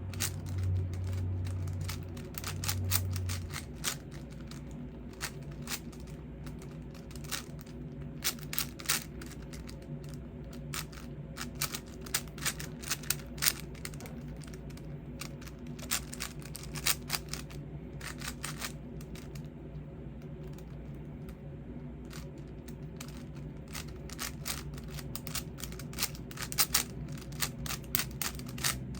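5x5 Rubik's cube being turned by hand during a speedsolve: irregular runs of quick plastic clicks and clacks as the layers turn, broken by short pauses.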